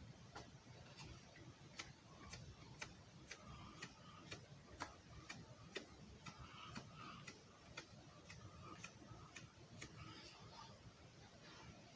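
Faint, regular ticking, about two ticks a second, in near silence.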